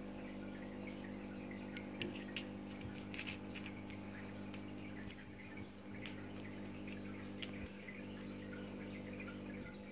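Aquarium water bubbling and trickling with small drips, over the steady low hum of the tank's pump. A few sharper ticks stand out here and there.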